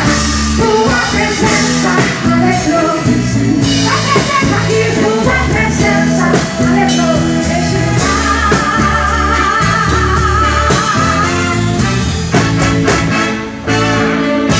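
Live gospel band playing through a PA system: a bass line and drum strikes under a sung melody with vibrato.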